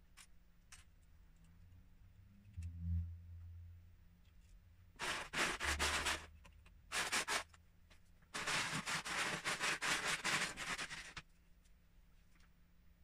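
Plastic Lego bricks clicking and scraping as they are handled and fitted together: a low thump about three seconds in, then three runs of quick clatter, the last and longest lasting about three seconds.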